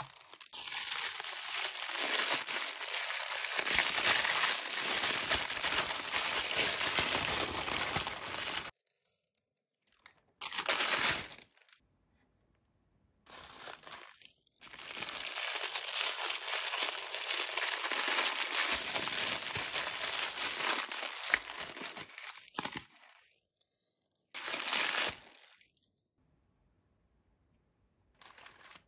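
Thin plastic packaging crinkling and rustling as it is handled and unwrapped, in two long stretches of several seconds each, with short bursts of crinkling between them and near the end.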